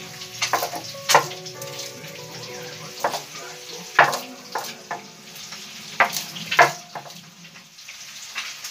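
Stone roller of a sil-batta grinding stone knocking against the flat stone slab as it crushes garlic cloves. About seven sharp knocks come at uneven intervals, in pairs and singly.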